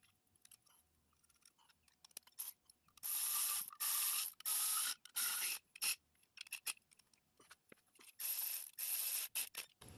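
Cordless electric ratchet running in short bursts as it drives the bolts of an alternator's housing, several bursts about three seconds in and again near the end, with light clicks of the part being handled before and between them.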